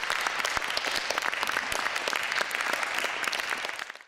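Audience applauding, a dense run of many hands clapping that fades out near the end.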